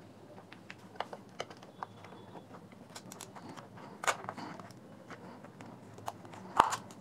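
Flat-blade screwdriver prying at the seam of a plastic earbud charging case: scattered small plastic clicks and scrapes, with sharper snaps about four seconds in and again near the end.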